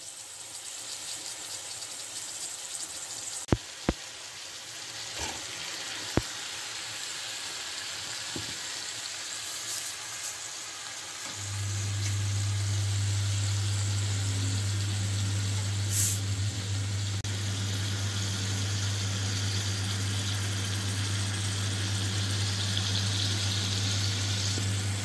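Onion, tomato, green pepper and garlic sizzling as they fry in oil in a pan, a steady hiss, with a few sharp knocks in the first several seconds. About halfway a steady low hum starts and carries on under the sizzle.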